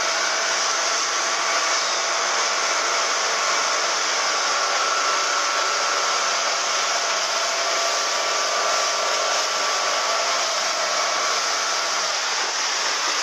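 Small motorboat running at speed: a steady, unbroken rush of engine noise and churning wake water, with a faint whine running through it.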